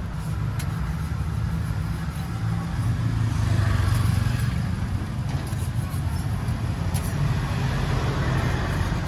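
Steady low rumble of motor traffic, with a few faint clicks over it.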